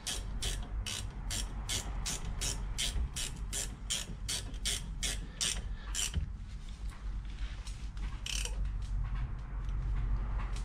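Socket ratchet clicking in a steady rhythm, about three clicks a second, as a bolt on the brake is wound in by hand; the clicking stops about six seconds in, followed by a few scattered clicks.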